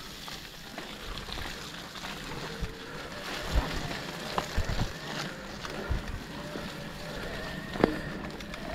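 Mountain bike moving through mud: a wet, sloshing noise of tyres and mud, with a few short knocks scattered through.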